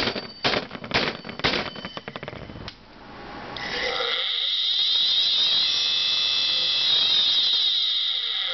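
A hand thumps an open hard drive about five times, half a second apart, followed by a short rattle. After a brief lull, a little over three seconds in, the drive's platters spin up into a loud high-pitched screeching whine of several gliding, crossing tones from its damaged spindle bearings.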